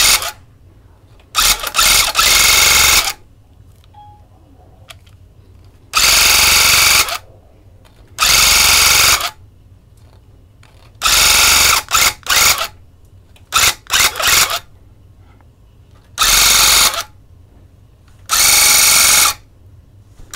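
Electric cut pile tufting gun running in short bursts of about a second each, starting and stopping about eight times as it is pushed through the rug backing.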